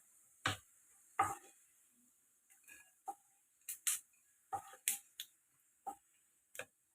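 About a dozen sharp clicks and knocks at uneven intervals, some with a duller thud, from kitchen utensils and dishes being handled during cooking.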